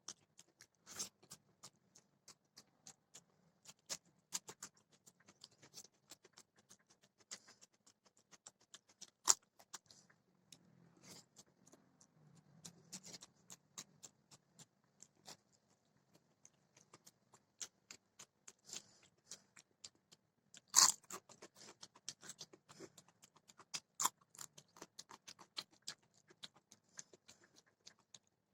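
A person chewing and crunching food close to the microphone: a string of small wet clicks and crisp crunches, with the loudest crunches about 9 and 21 seconds in.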